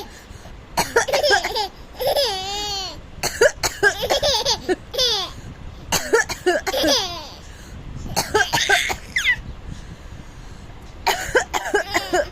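An adult coughing repeatedly and a baby laughing in response, in about six rounds separated by short pauses.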